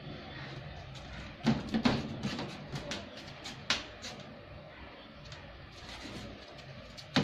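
Clattering knocks and rattles in a wire-mesh dog kennel: a burst about a second and a half in, a few more over the next two seconds, and one sharp knock near the end, over a steady low hum.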